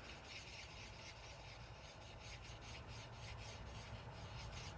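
Faint scratching of a Stampin' Blends alcohol marker's tip rubbing on cardstock in many short, repeated strokes as it colours in a small area.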